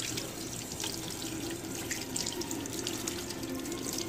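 Kitchen faucet running steadily into a stainless steel sink while a hand is rinsed under the stream: a constant rush of water with splashing.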